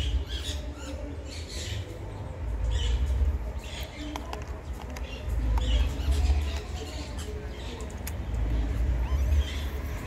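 Wild parrots squawking in short calls, repeated every second or so, over an uneven low rumble that swells several times.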